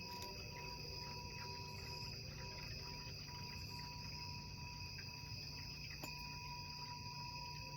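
Quartz crystal singing bowl ringing faintly: a steady held tone with higher overtones over a low hum, with a faint click about six seconds in.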